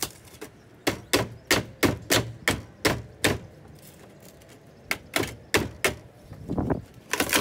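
Hammer tapping the greenhouse's roof flashing upward, quick sharp knocks about three a second, in two runs with a short pause between them.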